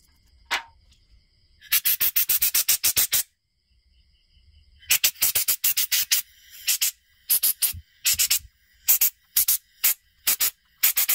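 Toothbrush scrubbing the body of a chainsaw carburettor to clean out the clogging dirt. It comes as two runs of rapid strokes, then slower single strokes about two a second, with a sharp click about half a second in. Crickets chirp steadily behind.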